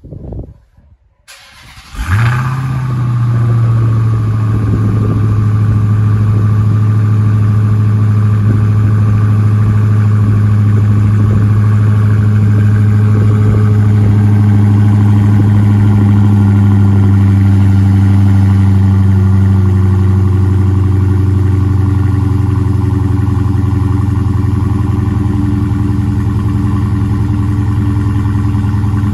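2020 Dodge Charger SRT Hellcat Widebody's supercharged 6.2-litre HEMI V8, cold-starting through its stock exhaust. It catches about two seconds in with a brief flare of revs, then settles into a steady fast idle.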